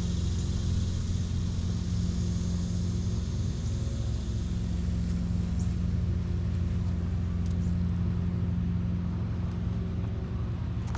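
An engine running steadily with a low, even hum and no change in speed.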